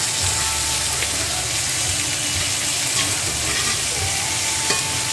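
Oxtails searing in hot fat in a cast iron skillet: a steady sizzle, with a few sharp clicks as the meat is worked with a fork.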